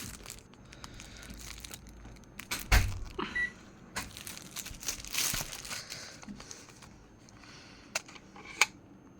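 Handling noises in a small room: a low thump, rustling and several sharp clicks, with one short high beep about three seconds in.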